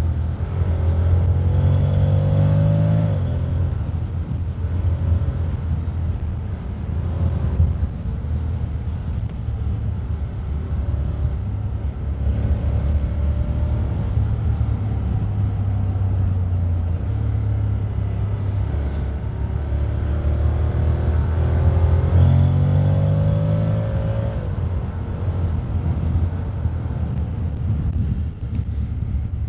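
Honda X-ADV 750's parallel-twin engine and exhaust while riding: it rises in pitch under throttle twice, near the start and again about two-thirds through, each rise breaking off sharply, with steady running in between.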